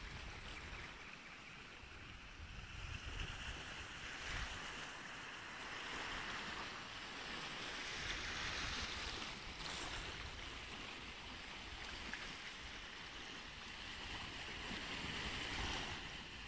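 Small waves washing onto a sandy beach in slow swells, with wind rumbling on the microphone.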